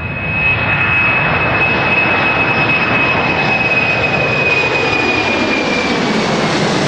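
Boeing 747's four jet engines at takeoff thrust as it climbs out: loud rushing jet noise that swells in the first half second, with a high fan whine that holds steady and then drops slightly in pitch about five to six seconds in.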